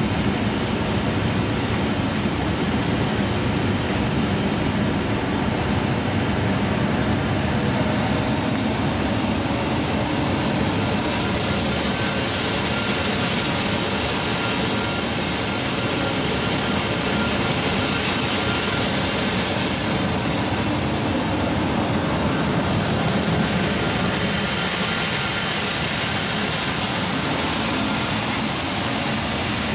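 Aeromeh SAD aerodynamic grain separator running while cleaning and sizing wheat, with grain pouring from its outlet chutes into bags. The noise is even and continuous, with no breaks.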